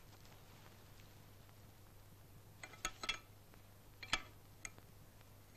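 A few light metal clinks of utensils or tin dishes being handled, a cluster about two and a half to three seconds in and two more about four seconds in, over a faint steady hum.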